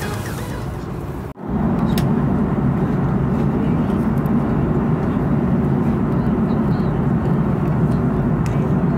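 Steady cabin noise of an Airbus A330-300 airliner in cruise, heard from a window seat beside the engine: a loud, even drone of engine and airflow. It sets in after a brief drop about a second and a half in.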